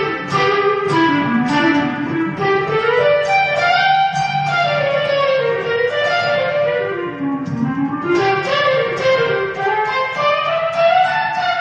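Electric guitar played solo: a flowing lead line of single notes in runs that fall and then climb again, each phrase a few seconds long.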